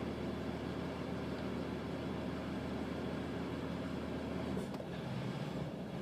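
Vehicle engine running with a misfire. The engine note shifts about four and a half seconds in, the deepest hum dropping away as a slightly higher tone takes over.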